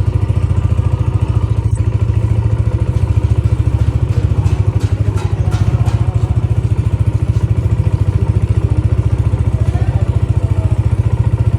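Honda CG 125's single-cylinder four-stroke engine idling steadily, with an even, rapid exhaust beat.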